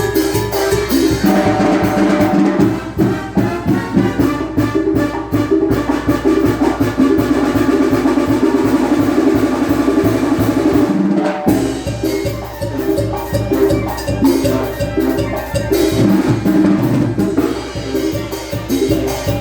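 Live Mexican banda music: brass and clarinets playing over a steady beat of bass drum and snare. The band breaks off for a moment about halfway through, then comes back in.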